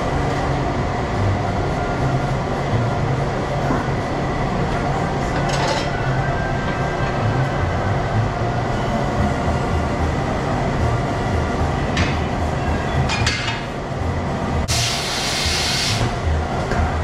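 Tire-shop machinery running with a steady low rumble and a few short metal clanks as a tire is worked on a tire changer. Near the end, compressed air hisses in one burst of about a second.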